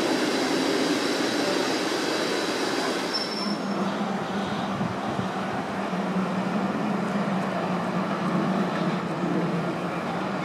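Electric commuter train running on the rails: steady wheel and rail noise, with a high whine over the first few seconds and a steady low hum after that.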